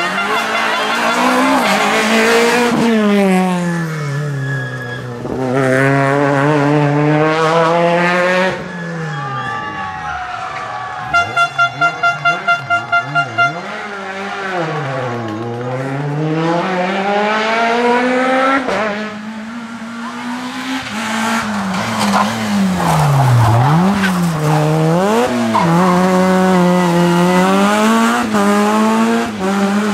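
Rally car engines revving hard as cars pass on a tarmac stage: the pitch climbs through each gear, then drops on lift-off and braking, again and again. About eleven seconds in, a run of about nine short, evenly spaced beeps sounds over the engines.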